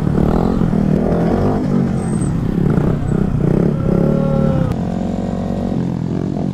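Honda Grom minibikes' small single-cylinder engines running at low speed, the note rising and falling with the throttle as a rider holds a wheelie.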